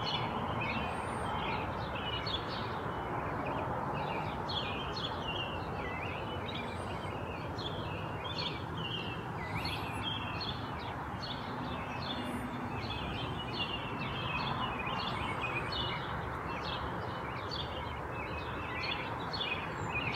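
Many small birds chirping and singing continuously, a busy overlapping run of short, varied high notes, over a steady background rush of noise.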